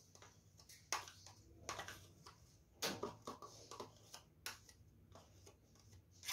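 A spoon scraping vanilla yogurt out of small plastic cups into a ceramic bowl, heard as faint, irregular scrapes and light taps, with a sharper tap near the end.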